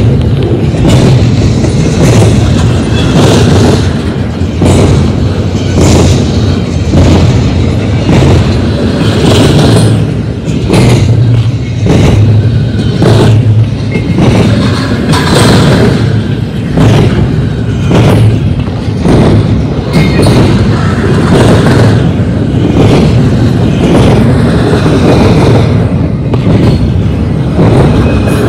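Double-stack intermodal well cars rolling past at close range: a very loud, heavy rumble of steel wheels on rail, broken by frequent sharp knocks as the wheel sets go by.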